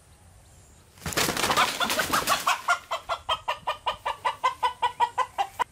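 Country chicken squawking: a loud, noisy flurry about a second in, then a fast run of repeated squawks, about six a second, that stops abruptly near the end.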